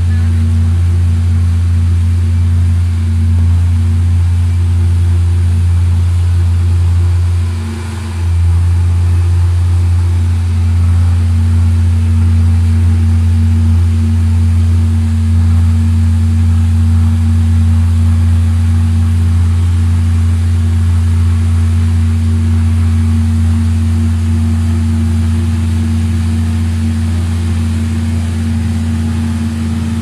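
Gas burner of an LPG-fired WNS fire-tube steam boiler running: a loud, steady low hum with a fainter higher hum above it. It dips briefly about eight seconds in.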